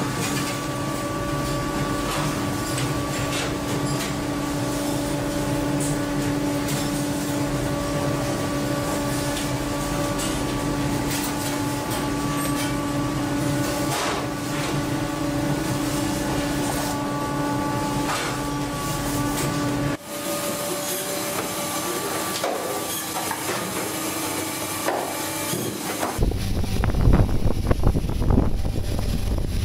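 Steady hum of fish-processing conveyor machinery with scattered knocks and clatter; the sound changes abruptly about two-thirds through. Near the end it gives way to wind buffeting the microphone and rushing sea water on a boat.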